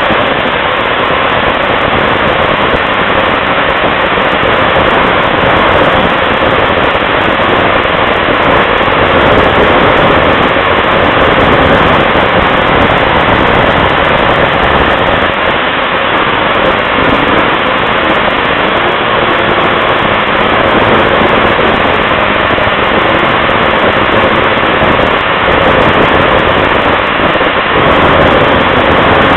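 Snowmobile running at speed along a groomed trail, heard from on board: a loud, steady engine and track noise.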